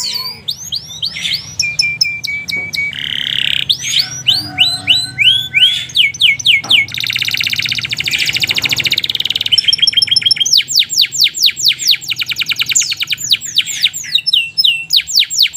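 Domestic canary singing a long, fast song. It runs through rapidly repeated sweeping notes, with a dense buzzing trill about halfway through, then goes back into quick repeated notes.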